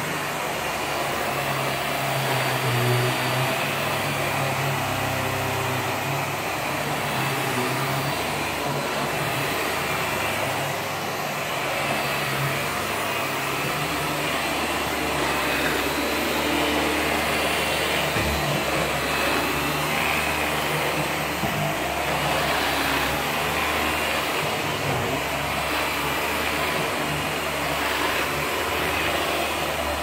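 Upright bagless vacuum cleaner running steadily while it is pushed over carpet.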